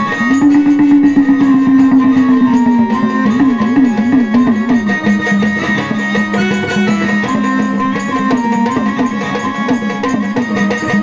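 Traditional Marathi devotional folk music: a held melody line that wavers into quick trills partway through, over steady fast drumming.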